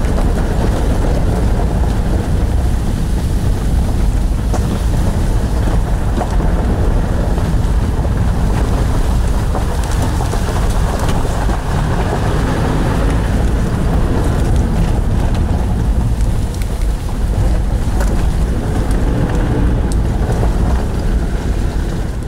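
Car driving slowly along a gravel forest track, heard from inside the cabin: a steady low rumble of engine and tyres on gravel, with scattered small clicks and rattles.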